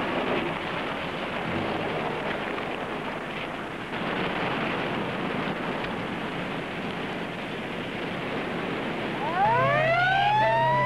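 A steady rushing noise. About nine seconds in, a siren winds up in a rising wail over a steady low hum.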